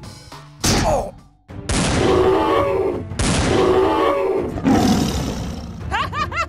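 Two long growling roars of a cartoon creature, each about a second and a half, one right after the other, with a shorter one after them. A quick squeaky warbling sound comes in near the end.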